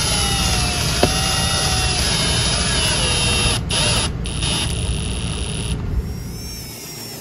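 Ridgid cordless drill/driver driving wood screws through a metal table-base mount into plywood flooring, its clutch set low so as not to strip the wood. The motor whines, its pitch drifting up and down. It stops briefly twice around the middle, runs again, then stops about six seconds in.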